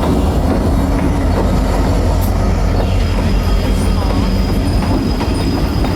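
CN freight train's diesel locomotives rumbling steadily, with the noise of the train in motion. A thin, high steady whine joins about halfway through.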